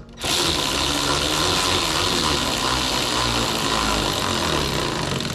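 A power tool running steadily, a loud even whirring noise that starts just after the beginning.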